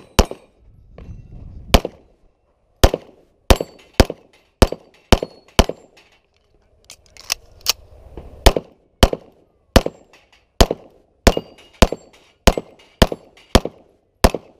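A CZ 75 SP-01 Accu-Shadow pistol fired in a fast string of about two dozen shots, mostly about half a second apart, with a pause of a second or so near the middle.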